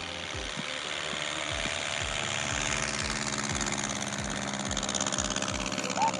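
A restored 1947 Aeronca light plane's single piston engine and propeller running at full power for takeoff. It is a steady drone that grows slightly louder.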